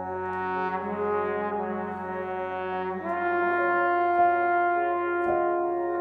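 Background music of slow, sustained chords, changing to a new chord about three seconds in.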